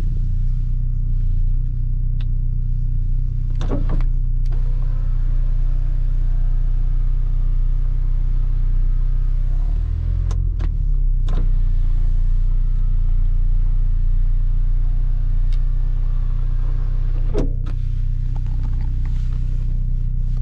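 Inside the cabin of a 1988 BMW M3 on the move: its four-cylinder engine and the road give a steady low rumble. A few sharp clicks come through, about four seconds in, twice around ten to eleven seconds, and again near seventeen seconds.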